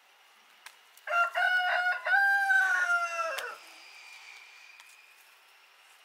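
A rooster crowing once, starting about a second in: a few short choppy notes run into a long held note that drops away at the end.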